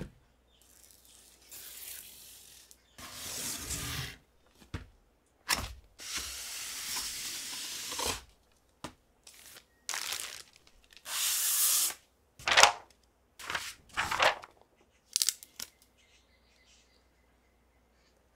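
Cardboard box and plastic wrapping handled and pulled open: a series of rustling, scraping and crinkling bursts, some brief and some lasting a second or two, ending a few seconds before the end.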